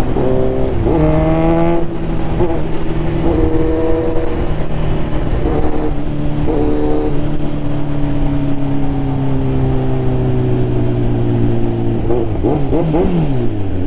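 Kawasaki Z900 inline-four motorcycle engine through a Mivv carbon full exhaust system, running under way. The note climbs about a second in, holds steady for long stretches with a few short rises and dips, and drops away near the end as the bike slows, with wind rush throughout.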